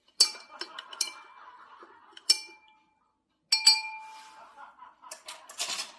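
Glassware clinking: sharp clinks with brief ringing, in bunches at the start, about two seconds in and about three and a half seconds in, then a quicker run of clinks near the end.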